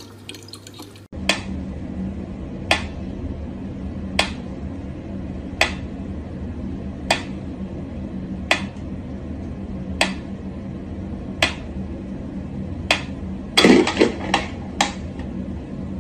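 Mechanical pendulum metronome ticking slowly and evenly, one sharp tick about every second and a half. A quick cluster of several knocks comes near the end.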